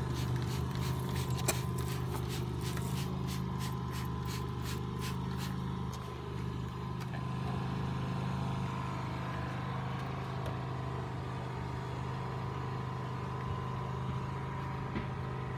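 Trigger spray bottle squirted again and again, a run of short spritzes over the first six seconds or so, over a steady low motor hum.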